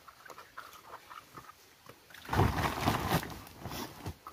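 Peeled bamboo shoots being handled and gathered off a pile: light knocks and scuffs, then a louder, rough burst of rustling and knocking a little over two seconds in that lasts about a second.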